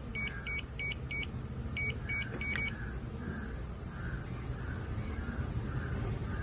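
A run of short high electronic beeps, about three a second, stopping about a second in, then three more near two and a half seconds, over a low rumble that grows louder toward the end.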